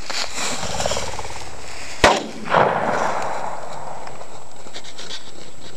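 A shotgun fired once about two seconds in, a sharp crack followed about half a second later by a second, duller report.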